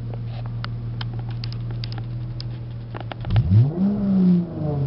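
Dodge Charger's 3.6L Pentastar V6 with a Flowmaster Super 44 muffler and resonator delete, heard inside the cabin with the windows shut: a steady idle hum, then about three seconds in the car pulls away and the exhaust note rises in pitch and falls back again.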